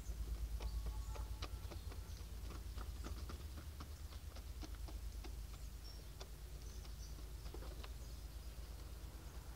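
White Australorp hens pecking feed from a plastic tub and the dirt, many quick irregular beak taps and clicks, with a brief soft note about a second in.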